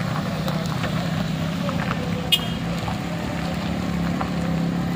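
A minivan's engine running as it drives close by, with a motorcycle engine behind it. A single short, sharp high click sounds about two and a half seconds in.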